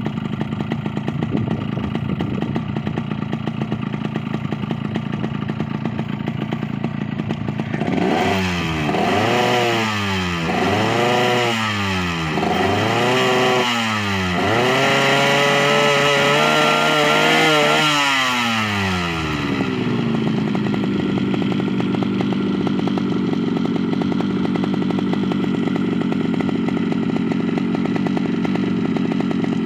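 Small carbureted petrol engine idling, then revved in four quick blips about eight seconds in. It is held at high revs for a few seconds, then falls back to a steady idle. The owner says it coughs at full throttle instead of pulling cleanly and blames a worn-out carburetor.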